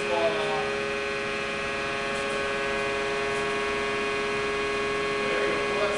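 Hydraulic compression testing machine running with a steady hum made of several fixed tones.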